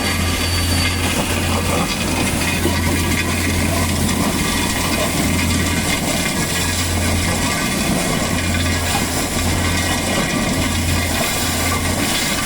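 Rail vacuum train's suction system running steadily while it sucks out wet, fouled track ballast: a dense, gritty rush with a low hum that comes and goes every second or two.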